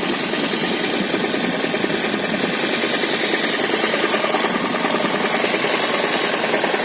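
Toyota Prius NHW11's 1.5-litre four-cylinder petrol engine running with a steady, rapid knocking. The owner puts it down to lost compression in one cylinder.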